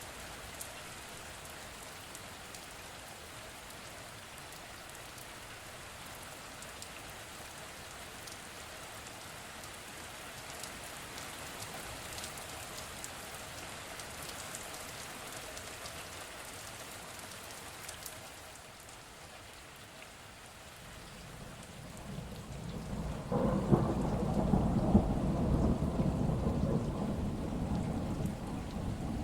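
Steady heavy rain falling, with scattered drop ticks. About two-thirds of the way in, a roll of thunder builds, rumbles for several seconds as the loudest sound, and eases off near the end.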